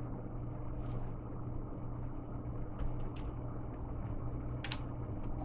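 A few light plastic clicks and taps as hands press a laptop's bottom cover back into place, the sharpest click near the end, over a steady low hum.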